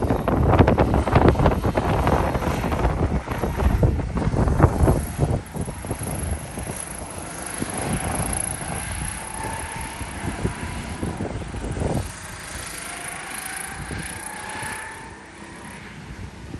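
Several go-kart engines running as the karts lap the track, their pitch rising and falling with speed. Wind buffets the microphone for the first few seconds.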